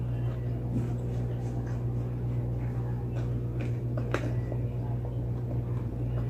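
Close-up chewing and wet mouth sounds of a person eating a mouthful of food, with a few sharp clicks, the sharpest about four seconds in, over a steady low hum.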